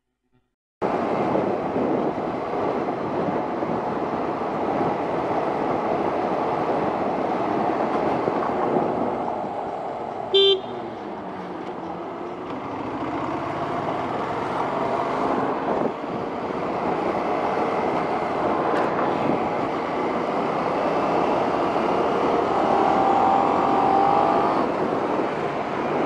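Motorcycle ride heard through a helmet-camera microphone: steady wind rush and road noise with the engine running under it, starting suddenly about a second in. About ten seconds in, a single short horn beep.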